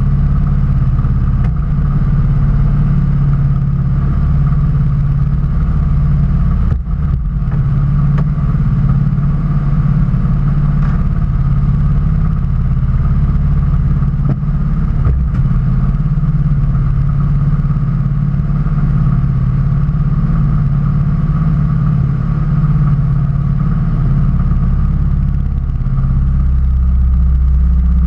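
Railroad speeder's engine idling with the car at a standstill: a loud, steady low drone, its lowest rumble growing louder near the end.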